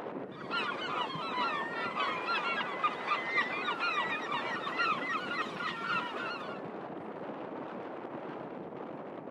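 A flock of seagulls calling, many short overlapping calls in a dense chatter that starts about half a second in and stops abruptly after about six seconds, over steady background noise.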